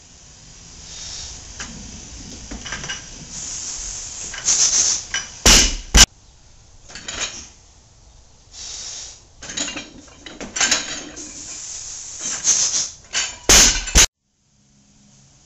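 Loaded Olympic barbell with iron plates being lifted in cleans, the plates clanking and rattling. Two hard metallic impacts come close together as the bar comes down, about five and a half seconds in and again near the end, where the sound cuts off suddenly.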